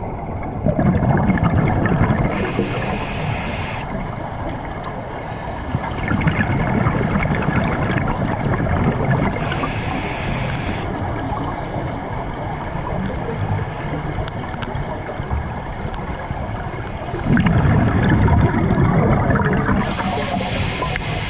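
Scuba diver breathing underwater through a regulator: gurgling surges of exhaled bubbles and a brief hiss of each inhalation, repeating about every eight to ten seconds, three breaths in all.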